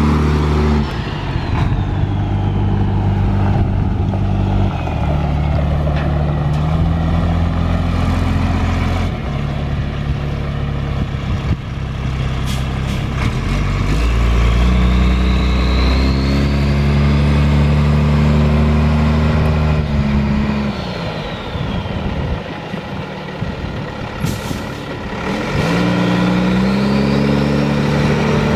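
International DT466 inline-six diesel engine of a 1996 International 4900 truck running under way, its pitch stepping up and down several times as the automatic transmission shifts. A brief hiss of air from the air brakes comes about 24 seconds in.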